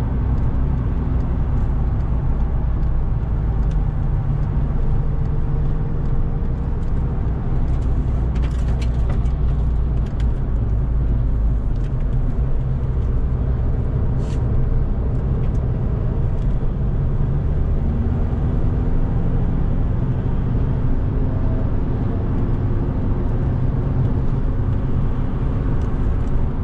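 2006 VW Golf Mk5's 2.0 TDI Pumpe-Düse four-cylinder turbodiesel running on track, with steady road and tyre noise. The engine note rises and falls in pitch a few times as the revs change.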